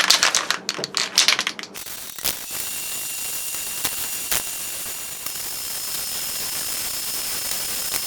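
Rapid ratcheting clicks for about two seconds, then an electric drill running steadily with a faint high whine and a few sharp ticks as it bores holes in a steel frame.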